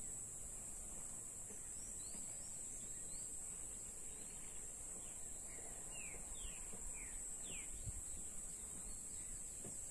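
Steady high-pitched insect drone over a low wind rumble on the microphone, with a bird giving a run of short falling chirps about five to eight seconds in.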